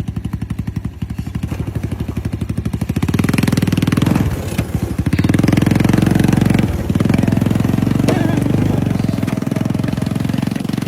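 Jeep engine running as the vehicle drives, with a low pulsing exhaust beat that quickens and evens out after about three seconds, dipping briefly twice.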